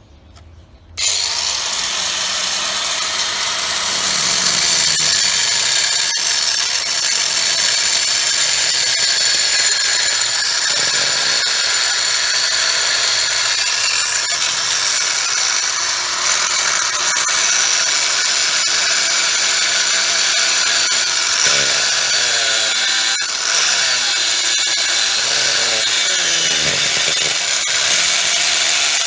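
A handheld power tool switches on about a second in, spins up and runs steadily with a loud, mostly high-pitched hiss, as if working the metal or surface around a rooftop drain.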